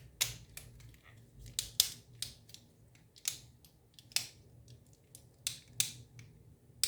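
Plastic Xbox controller shell halves being pressed and worked together by hand: about a dozen sharp, irregular clicks and snaps.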